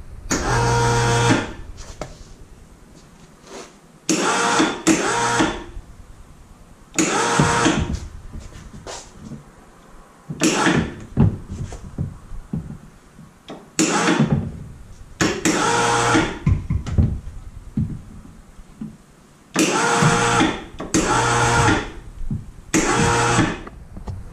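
An electric motor whining in about a dozen short bursts of a second or less, started and stopped in jogs while the Sea-Doo 787 engine is being fitted into the hull.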